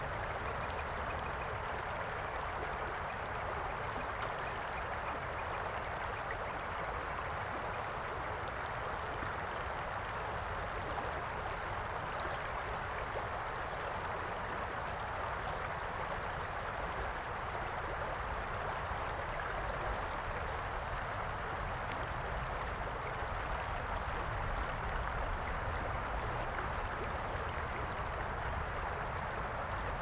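Shallow river water running steadily over stones close to the microphone, an even rushing with no change in level.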